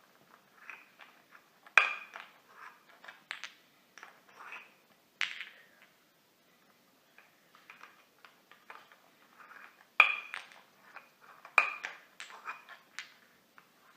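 Irregular clinking and knocking of small hard objects, like dishes or cutlery being handled, with a few sharper, ringing clinks about 2, 5, 10 and 12 seconds in.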